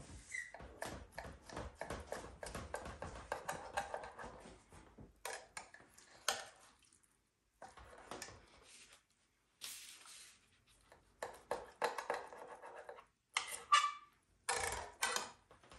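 Knife and fork scraping and clicking against a glass baking dish as haddock fillets are cut, with metal tongs clicking as pieces are lifted out. Irregular short clicks and scrapes, with a few brief pauses.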